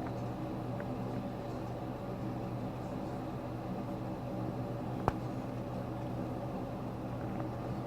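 A steady mechanical hum made of several constant tones over a faint hiss, with one sharp click about five seconds in.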